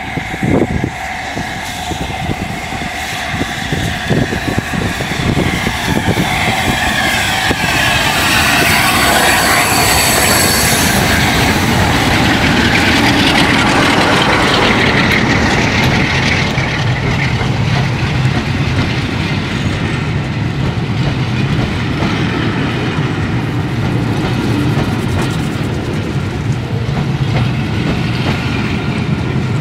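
A streamlined LNER A4 Pacific steam locomotive (Union of South Africa) approaches and runs through the station, growing loud and peaking about a third of the way in. Its train of coaches follows, passing at a steady rumble with wheels clattering over the rail joints.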